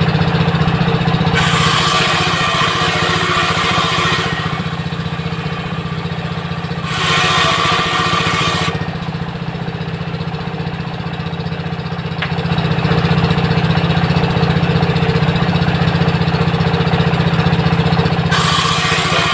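A 16 HP diesel engine runs steadily, driving a homemade table saw whose circular blade rips through wood three times: a harsh rasping cut for about three seconds, a shorter one a few seconds later, and a third starting near the end.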